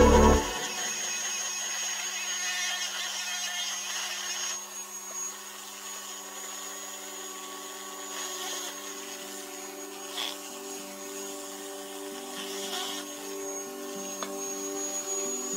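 Dremel rotary tool on a flexible shaft, running with a diamond burr carving into a hardwood saw handle. A steady motor whine whose pitch shifts slightly now and then as the burr bites.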